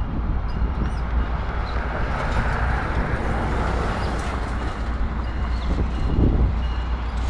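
Diesel passenger locomotive running under power as it pulls a train slowly toward the listener, with a steady low engine rumble.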